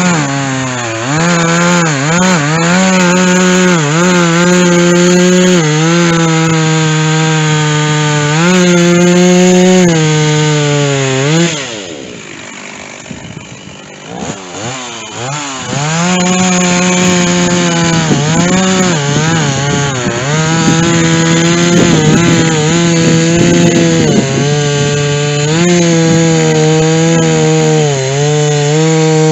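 Stihl chainsaw cutting white oak with a dull chain: it runs at high revs, its pitch sagging and recovering as it bogs in the cut. About twelve seconds in it drops to idle for a few seconds, then revs back up and cuts again.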